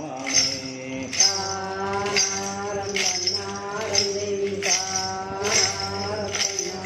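Hand-held double-headed drums struck with sticks in a steady folk rhythm, with a constant metallic jingle of bells, while a voice sings long held devotional notes over them.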